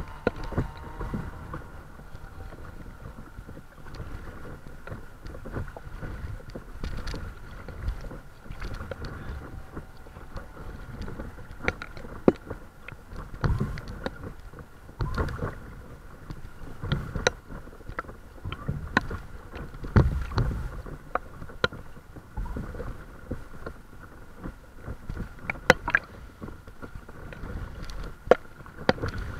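Water sloshing and slapping against the hull of a paddleboard as it is paddled, with irregular surges and short sharp splashes and knocks from the paddle strokes.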